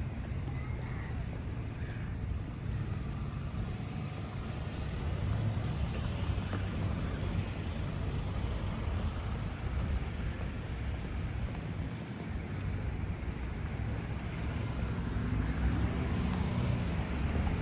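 Road traffic going by: a steady low rumble, with a vehicle's engine note rising near the end.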